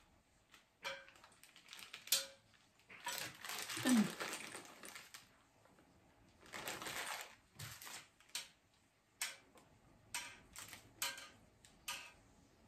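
Clear plastic packets of small hardware crinkling and rustling in the hands, in short irregular spells with scattered small clicks and taps.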